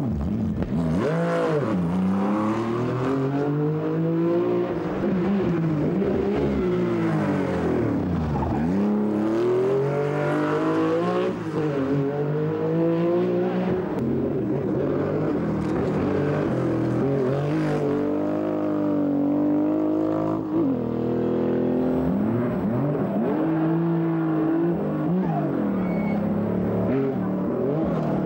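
Porsche 911 rally car's flat-six engine revving hard at speed, its pitch climbing and dropping again and again through gear changes and lifts as the car passes.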